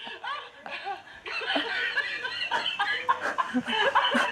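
Laughter: quick, repeated chuckling, getting louder and busier about a second in.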